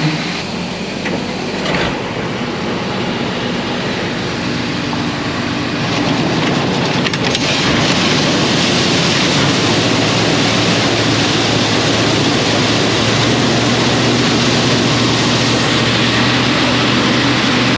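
Heavy farm machinery running steadily: an engine hum under a dense rushing noise, which grows louder about six seconds in and then holds level.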